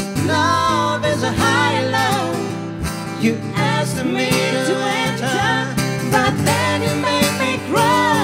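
A man and a woman singing a duet, accompanied by acoustic guitar.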